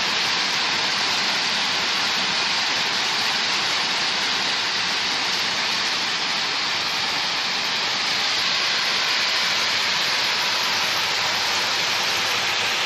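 Heavy rain falling: a dense, steady hiss.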